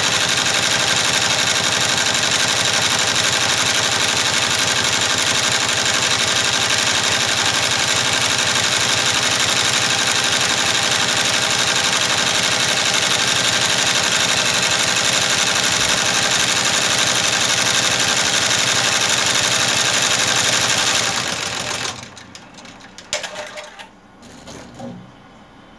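Multi-needle embroidery machine stitching a logo at speed, a fast, steady run of needle strokes, which slows and stops about three-quarters of the way through. A few light knocks follow.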